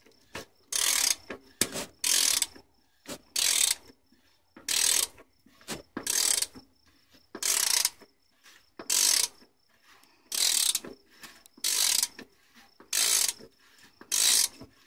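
Half-inch drive ratchet clicking in short bursts, about one every 1.3 seconds, as it is swung back and forth to tighten an oil filter cartridge housing cap.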